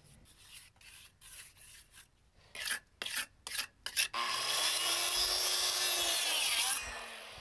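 A trowel scraping wet grout in short strokes, then a circular saw cutting through a pressure-treated board for about three seconds, stopping a little before the end.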